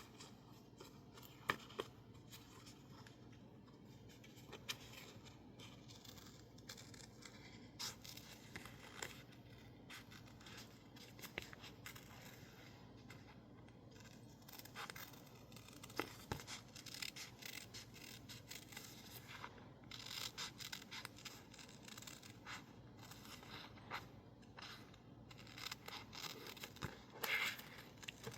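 Scissors snipping through sticker label paper in short, irregular cuts, with light paper rustling; the sound is faint.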